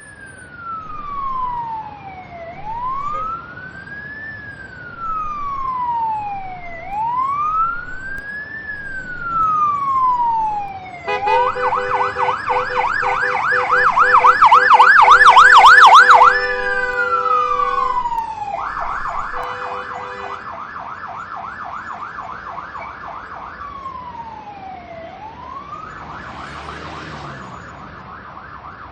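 Ambulance siren clearing a path: a slow rising-and-falling wail, then a fast yelp with a steady blaring tone over it, loudest about 15 seconds in. It then alternates between wail and yelp and grows fainter.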